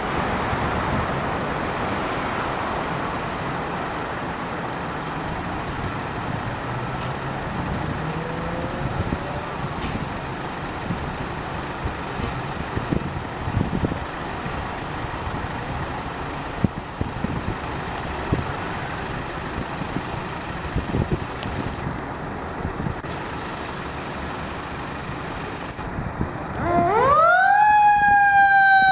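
Fire pumper truck running steadily, with scattered knocks and clatter. Near the end its siren starts and winds up fast, rising steeply in pitch and getting louder.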